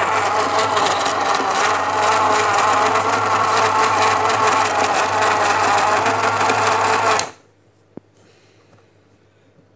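Newman Sinclair NS400 35mm cine camera running empty, its electric drive and claw-and-shutter mechanism making a fast, steady clatter with a low hum beneath it. It stops abruptly about seven seconds in, followed a moment later by a single click.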